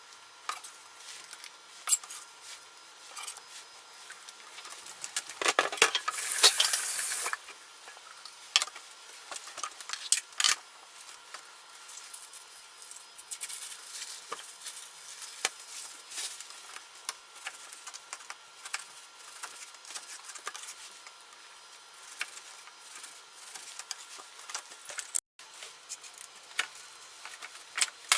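Home kitchen cooking sounds: utensils clicking and knocking against pans and dishes, with a loud hiss lasting about a second and a half around six seconds in.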